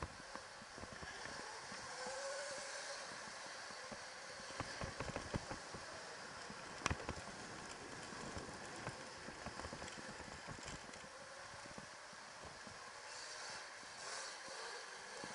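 Electric dirt bike being ridden over a bumpy packed-dirt track: a steady rush of tyre and wind noise with frequent knocks and rattles from the bike over the bumps, and one sharp knock about seven seconds in.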